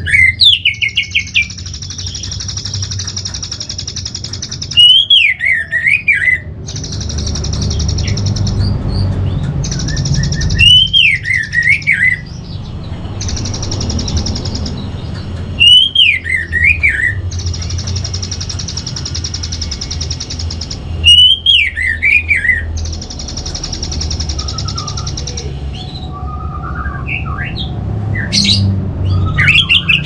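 Orange-headed thrush song: a short whistled phrase that rises and falls, repeated at even spacing about every five seconds, each phrase followed by a high steady buzz lasting about two seconds, over a low rumble. Near the end the pattern gives way to scattered different chirps.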